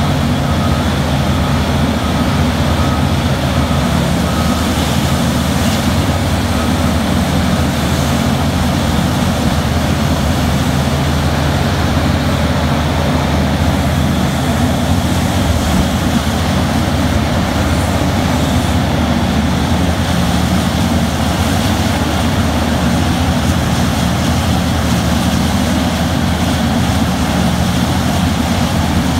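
Terex RH170 hydraulic mining shovel running under load as it digs into the face: a loud, steady, low engine drone.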